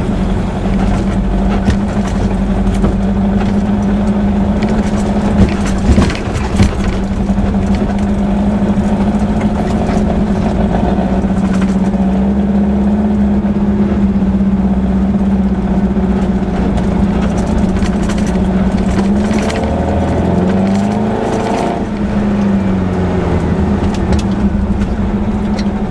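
Air-cooled VW flat-four engine of a Baja Bug running steadily under load on a rough dirt trail, heard from inside the cabin. A few sharp knocks come about six seconds in as the car jolts over the ground. Around twenty seconds in, the engine note dips and then climbs back up.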